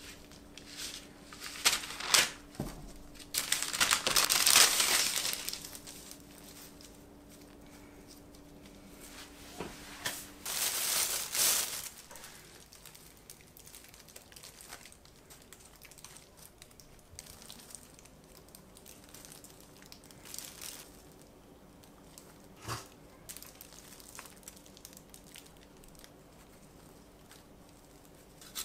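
Parchment paper crinkling and rustling as it is spread out and bread slices are set on it, loudest in the first few seconds and again briefly about ten seconds in. After that only faint soft rustles and light taps as shredded cheese is scattered onto the bread.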